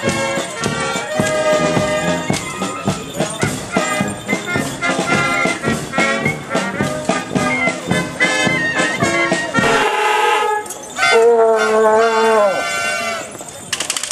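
Marching brass band playing with a steady drum beat. About eleven seconds in, a loud held chord sounds for about a second and a half, then the music falls away.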